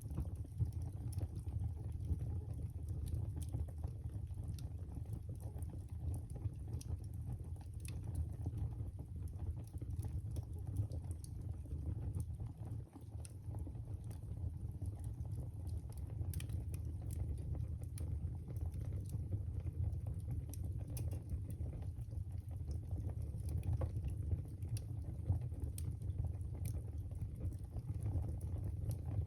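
Fire crackling in a fireplace: irregular sharp pops and crackles over a steady low rumble of the flames.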